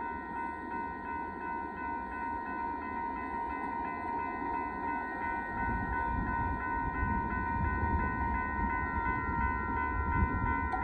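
Railroad crossing bell ringing steadily while the gate arms lift after the train has cleared the crossing. Under it is a low rumble that grows louder about halfway through.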